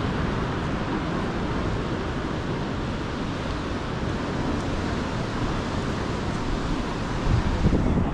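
Steady wash of ocean surf breaking on a beach, mixed with wind noise on the microphone, with a brief louder rumble near the end.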